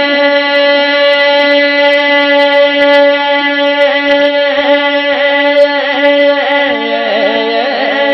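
Unaccompanied male naat singing into a microphone: one long held note that begins to waver and bend into ornaments about halfway through.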